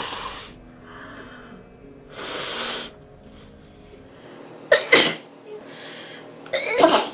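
A woman sneezing twice, the second sneeze longer and louder, after a short rush of breath through the nose about two seconds in.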